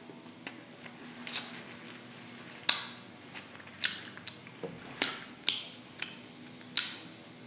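Close-miked mouth sounds of eating sticky glazed pork ribs: wet chewing and sharp lip smacks, about eight or nine short smacks spaced roughly a second apart.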